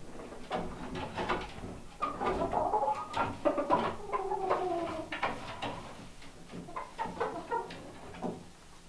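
Hens settling on the roost at bedtime, making soft, cooey calls that overlap, several of them drawn out and falling in pitch, with a few light knocks mixed in.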